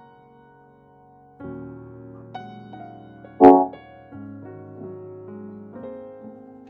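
Piano or electric-piano music playing through the Mivi Nex 900 soundbar system at a low test volume: held notes with chord changes, and one short loud hit about three and a half seconds in.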